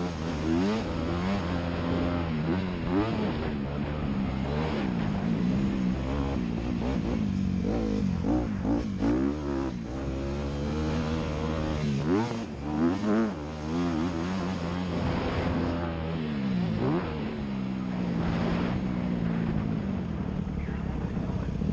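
Honda CRF250R's four-stroke single-cylinder engine under race riding, revving up and falling back over and over as the throttle opens and closes, with a brief drop off throttle about twelve seconds in.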